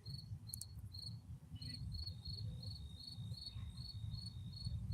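Crickets chirping in a steady rhythm, about two to three chirps a second, over a continuous high trill, with a low rumble underneath.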